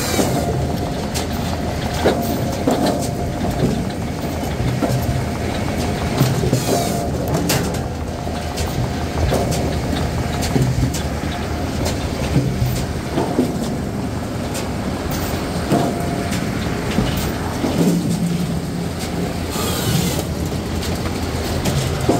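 Bells 4000 firewood processor running steadily, with split ash firewood knocking and clattering against its steel chute and conveyor many times over.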